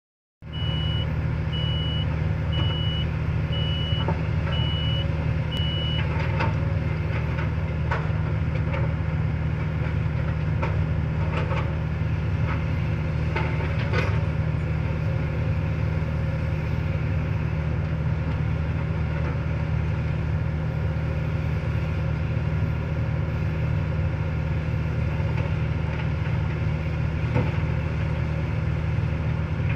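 Kobelco hydraulic excavator's diesel engine running steadily under load, with occasional knocks from the working machines. A high beeping repeats over the first six seconds.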